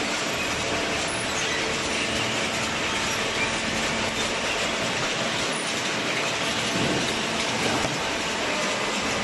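Horizontal hydraulic waste baling press running: a steady, dense mechanical noise with a faint rattle and no let-up.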